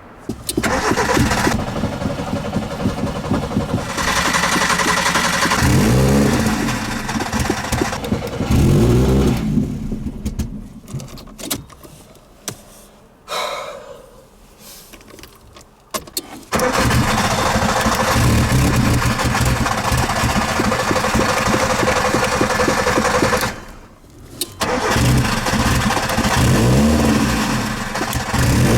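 A Nissan Micra K11 being cranked over by its starter in long stretches. The engine catches and revs up briefly a few times, about 6 and 9 seconds in and again near the end, then sputters and falls back to cranking: a hard-starting car.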